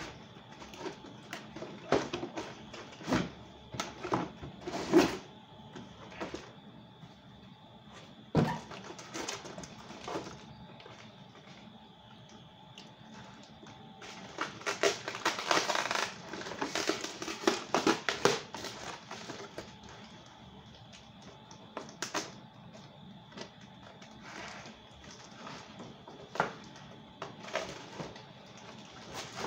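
Cardboard box and plastic packaging of a toy RC car being handled and opened: scattered knocks and clicks, with about four seconds of dense crinkling and tearing around the middle.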